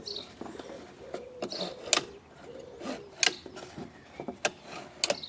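Evolution R185CMS-Li cordless compound mitre saw being handled: a run of light clicks and knocks, with sharper clicks about two seconds in, about three seconds in and near the end.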